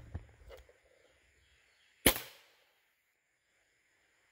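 A single shot from an SMG .22 PCP air rifle, one sharp crack about two seconds in with a short decay. Near the start the previous shot dies away, followed by two faint clicks.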